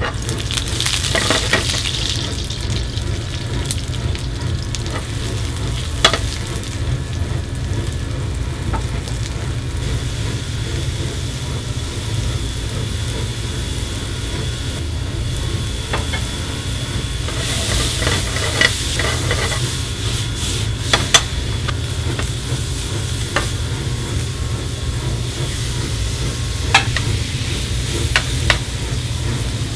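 Food sizzling and frying in oil in a pan over a gas burner: vegetables being sautéed, with beef cubes searing over a high flame near the end. A steady low rumble runs underneath, and a handful of sharp clicks of a utensil against the pan stand out.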